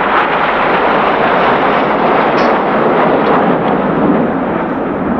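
Jet noise from a formation of nine BAE Hawk T1 jets passing overhead, their Rolls-Royce Adour turbofans making a loud, steady rushing sound.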